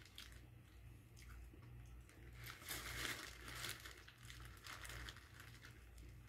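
Faint, scattered crinkling and crunching from handling and eating a fried chicken burger in its paper wrapper, in a few soft bursts over a low steady hum.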